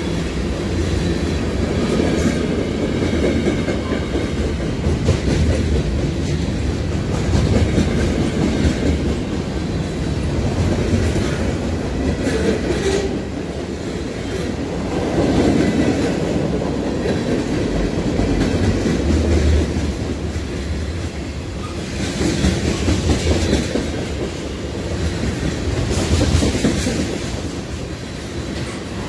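Freight train cars rolling past close by: a steady rumble of wheels on rail with repeated clickety-clack as the wheels cross rail joints.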